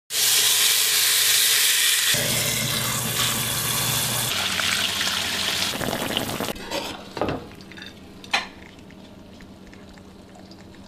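Beef shank sizzling as it sears in hot oil in a pot: a loud, steady hiss that drops away about six and a half seconds in. Two short knocks follow in the quieter remainder.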